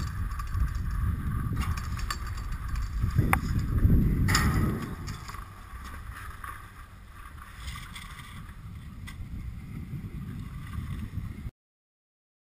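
Skis sliding and scraping on snow, with wind rushing on the microphone, while towed up a Poma button surface lift. About three seconds in there is a short rising squeal and the loudest rush, then the sound settles to a quieter sliding hiss, and it cuts off abruptly near the end.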